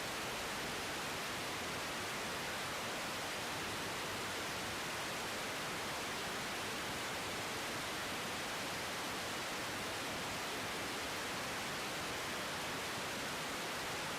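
Steady, even hiss of radio static from the air-traffic-control receiver between transmissions.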